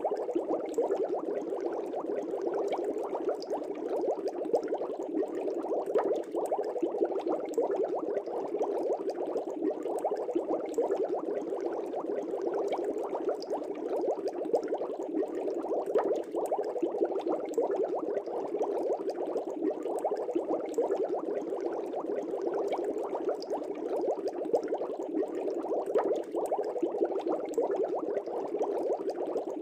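Air bubbles rising through aquarium water, bubbling steadily as a dense stream of small pops without a break.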